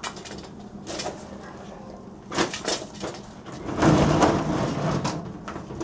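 Knocks and clatter of things being handled and moved, with a louder rattling scrape lasting about a second and a half, starting about four seconds in.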